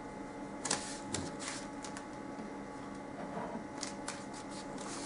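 Close handling noises: a run of light clicks and rustles, in two clusters about a second in and near the end, as hands work over the dog's coat at the withers while the skin is being swabbed before an injection.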